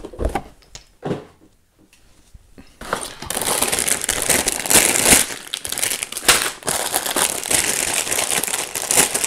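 Clear plastic bags of clip-on building bricks crinkling steadily as they are lifted out of a cardboard tray and handled, starting about three seconds in. A couple of short knocks come in the first second.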